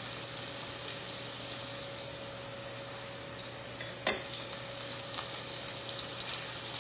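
Marinated chicken pieces frying in oil in a frying pan, a steady sizzle, with a faint steady hum underneath. A single sharp knock about four seconds in, followed by a few light clicks.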